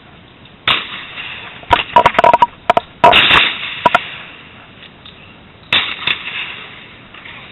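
Shotgun reports: a shot about a second in, a quick run of sharp cracks, then the loudest shot about three seconds in, and another near the end.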